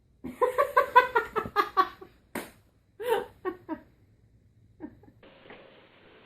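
A person laughing hard in a quick run of pitched 'ha' bursts for about two seconds, then a shorter burst of laughter about three seconds in. Faint background hiss follows near the end.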